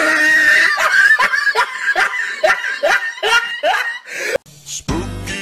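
A person laughing hard in a run of short, high, rising gasps, about two or three a second. Music starts near the end.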